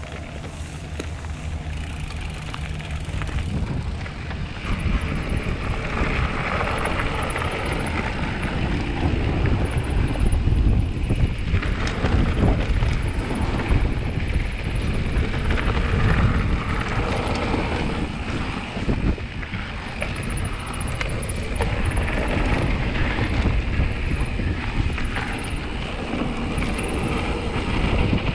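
Mountain bike descending a loose dirt and gravel trail: tyres crunching over stones and the bike rattling with many small knocks over the bumps, with wind buffeting the helmet-mounted microphone. Before the descent gets going, in the first few seconds, a low steady hum sits under it.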